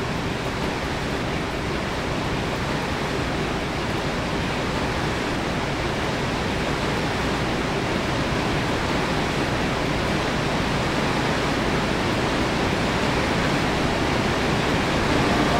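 Steady rushing of whitewater at Barnafoss, the waterfall and rapids on Iceland's Hvítá river, growing slowly a little louder.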